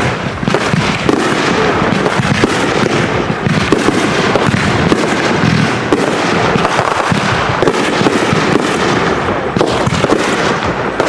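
Consumer fireworks going off together, strobe waterfalls among them: a dense, unbroken stream of pops and crackles with bursts throughout.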